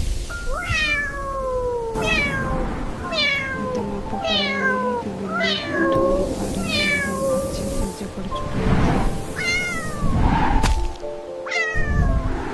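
A cat meowing over and over, each meow falling in pitch, roughly one a second, with background music underneath.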